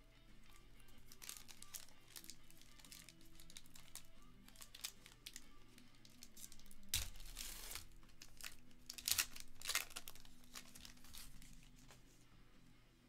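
Plastic foil wrapper of a trading-card pack crinkling and tearing as it is opened, in quick crackles, loudest about seven seconds in and again around nine to ten seconds in. Faint music plays underneath.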